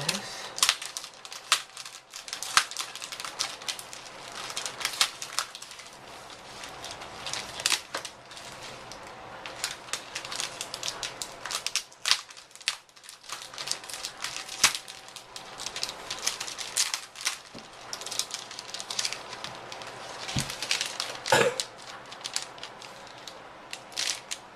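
Plastic packaging crinkling and rustling in irregular bursts, with sharp clicks and taps, as a new keyboard is unwrapped. A fan runs steadily underneath.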